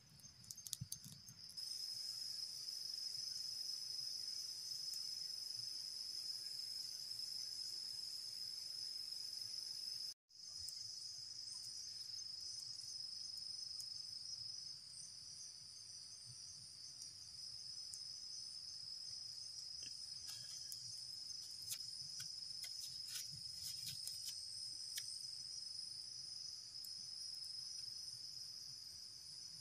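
Steady high-pitched insect chorus, with a brief total dropout about ten seconds in and a few faint ticks in the second half.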